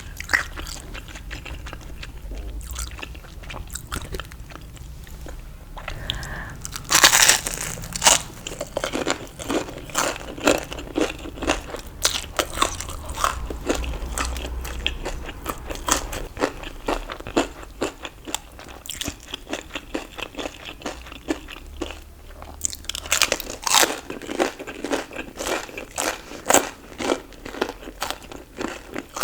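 Crunchy fried food bitten and chewed: a loud crunching bite about seven seconds in and another near the end, each followed by quick crunching chews several times a second.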